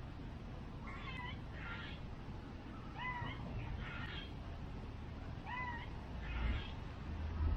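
An animal calling repeatedly: short pitched calls, each pair made of a hooked cry and a rougher one, every second or two. A low rumble runs beneath, swelling near the end.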